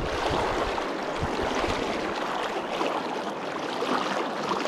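Steady rush of a fast, high-running river flowing over rocks, heard close by.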